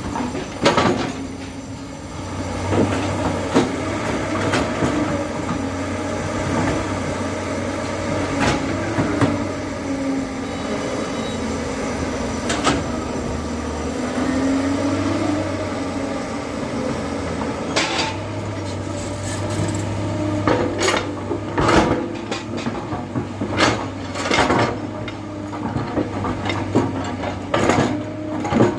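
JCB 3DX backhoe loader's diesel engine running under load as the backhoe works, its pitch rising and falling with the hydraulics, with repeated sharp metallic clanks and knocks from the bucket and arm, coming more often near the end.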